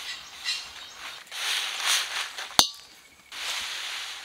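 Dry whole red chillies and spices rustling and crackling as they are stirred in a pan for dry-roasting, with one sharp clink about two and a half seconds in.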